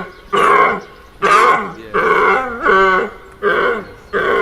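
An animal calling over and over: short pitched calls, one about every two-thirds of a second.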